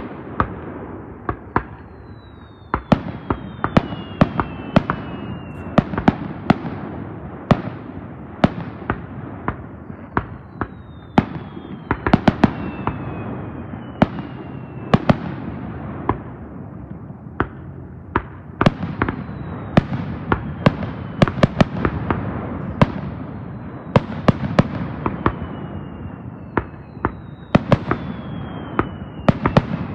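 Aerial firework shells bursting in a display: sharp bangs come irregularly, often two or more a second, over a continuous rumble. Several whistles fall in pitch along the way.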